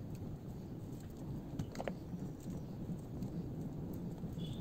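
Kitchen knife peeling the tough skin of a boiled elephant foot yam (suran): faint scraping and small scattered ticks over a steady low background hum.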